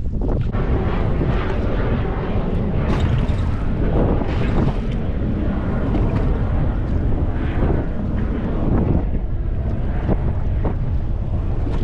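Wind buffeting the microphone on a small boat in choppy water: a steady low rumble with irregular splashy surges of waves against the hull.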